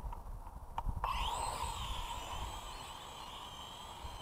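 Propel Orbit quadcopter's electric motors and propellers spinning up about a second in: a quick rising whine that settles into a steady high whine.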